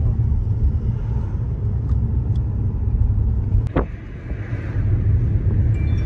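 Steady low rumble of a moving car, with one short click a little past halfway.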